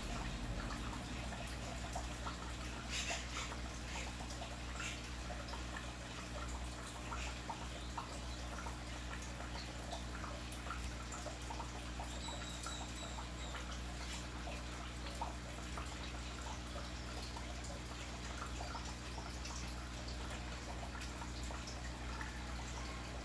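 Aquarium water trickling and bubbling with small irregular drips and splashes, over a steady low hum.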